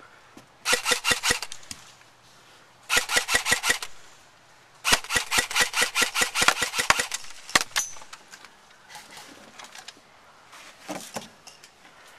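Airsoft guns firing on full auto, about ten shots a second, in three bursts. The last burst lasts about two seconds. Near the end come a few scattered, fainter single shots.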